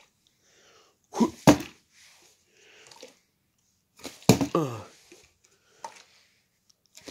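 A partly filled plastic PRIME drink bottle tossed in bottle flips and landing on carpet: dull thuds about a second and a half in and again about four seconds in.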